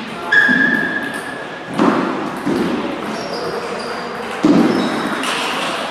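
Table tennis play in a large echoing hall: knocks of the ball and bats with thumps of footwork, and a few high squeaks, one drawn out for about a second near the start.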